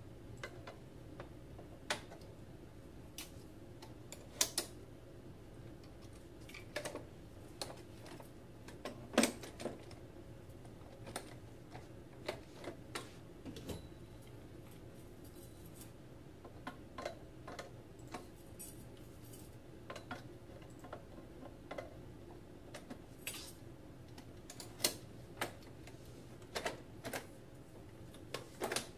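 Metal tubes and plastic fittings of a Graco Slim Spaces baby swing frame clicking and knocking irregularly as they are handled and fitted together, over a steady low hum.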